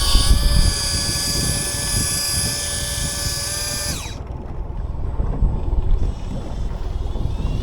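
A motor's whine rises to speed, holds steady for about four seconds, then winds down abruptly, over a steady low rumble.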